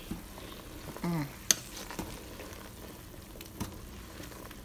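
A metal spoon stirring a pot of peanuts boiling in seasoned water: a steady bubbling hiss with a few sharp clinks of the spoon against the pot, the loudest about a second and a half in.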